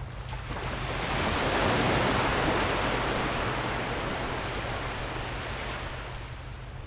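Rushing noise of sea surf, swelling over the first two seconds and then slowly fading, over a low steady hum.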